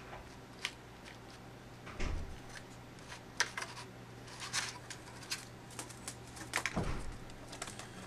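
Plastic clicks, taps and rattles of a laptop keyboard and case being handled while the keyboard's connector plug is lined up and the keyboard is laid back into place, with two dull thumps, about two seconds in and near seven seconds.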